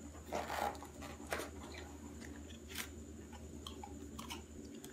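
Cardboard phone-box packaging being handled and opened: soft rustles and a few light clicks and taps, the loudest about half a second and just over a second in.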